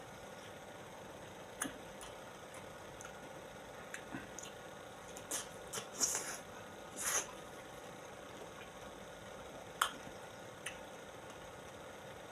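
Wet eating sounds of someone chewing soft ripe fruit: scattered mouth clicks and smacks with a few short squishy slurps in the middle.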